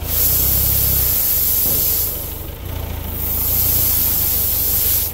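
Crushed stone pouring from a loader bucket into a deep dirt hole, a steady hiss of falling gravel that eases briefly about two seconds in and then picks up again, over the low steady running of the loader's engine.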